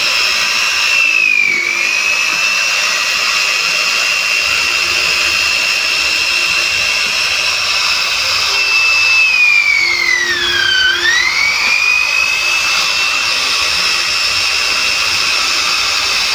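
CNC router spindle running with a high, steady whine that dips in pitch and recovers twice, the second dip deeper and longer.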